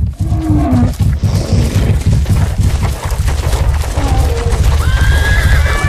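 Heavy stomping footfalls of large animals: a dense, uneven run of deep thuds and booms. A high pitched tone rises in about a second before the end.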